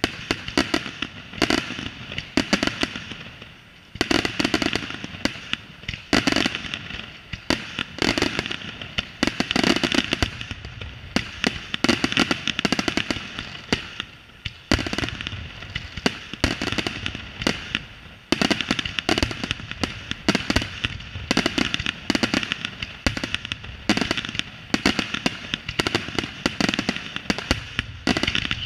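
Professional fireworks display: a dense barrage of aerial shell bursts, many loud bangs a second over a continuous crackle from the bursting stars. There are brief lulls a few times.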